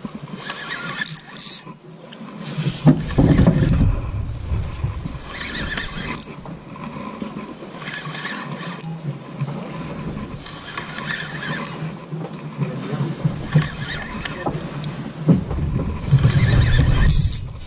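A fishing reel's drag squealing as a hooked fish pulls line off the reel. Heavy low rumbles come in about three seconds in and again near the end.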